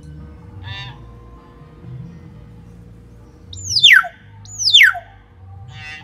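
Young hill myna calling: two loud whistles a little under a second apart, each sliding steeply down in pitch, with a short nasal call before them and another near the end.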